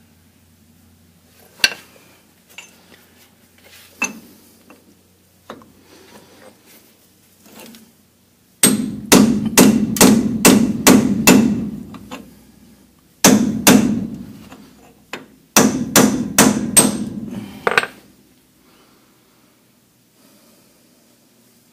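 Hammer blows on a Dana 44 front axle's stub axle, struck to drive it loose. A few light taps come first, then three runs of rapid heavy blows at about two or three a second, each a sharp metallic knock with a dull thud, before it stops near the end.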